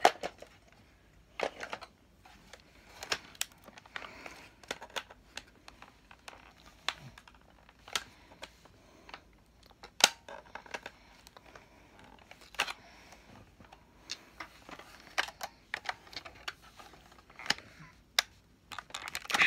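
Hard plastic Nerf blaster parts clicking and knocking against each other at an irregular pace as an attachment is pushed and worked, failing to seat.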